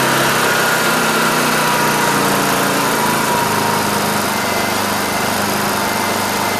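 Honda EU2000i inverter generator's small single-cylinder four-stroke engine running on propane, a steady hum whose pitch drops a little about three seconds in.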